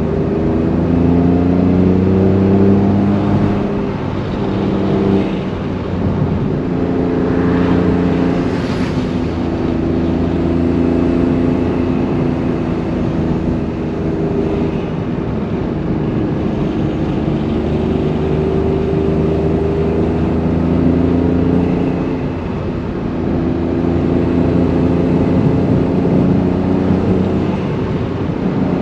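Honda S660's small turbocharged three-cylinder engine and exhaust under load on an uphill climb. The engine pitch rises steadily, drops back at each gear change, and climbs again, several times over.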